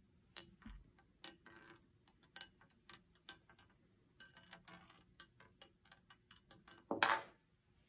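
A strong magnet sinking slowly down a vertical aluminium tube, held back by eddy-current braking, gives faint, irregular ticks and clicks as it knocks against the tube's inner wall. A louder clack comes near the end.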